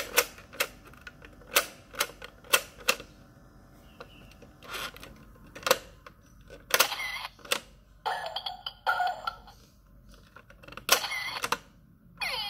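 Plastic toy camera with sounds and lights clicking sharply again and again as its shutter button and pop-up flash are pressed. Its speaker plays short electronic shutter-click and tone effects at intervals through the second half, with quick rising chirps starting near the end.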